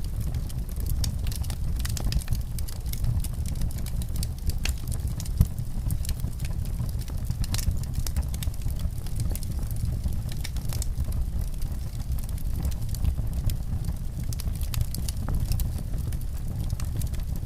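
Wood fire crackling in a fireplace: frequent irregular sharp pops and snaps over a steady low rumble of the flames.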